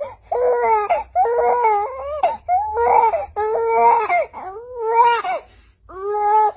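An infant crying: a run of repeated high-pitched wails, each up to about a second long, with short breaks between.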